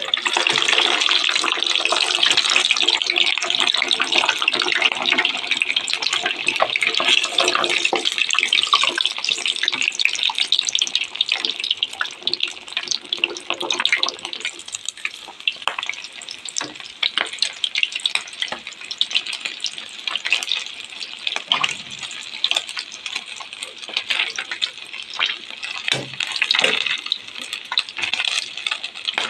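Pork frying in hot oil for Thai crispy pork (moo krob): a dense sizzle thick with crackles. After about halfway through it thins to a lighter sizzle with scattered pops.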